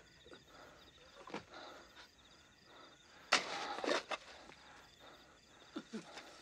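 Shovel work in loose dirt: one loud scrape and toss of soil about three seconds in, with smaller scuffs around it. Crickets chirp steadily in the background.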